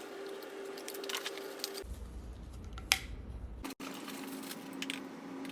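Hands unpacking vacuum cleaner parts from their packaging: plastic and cardboard crinkling with light clicks and taps, one sharper click about three seconds in, over a steady faint hum.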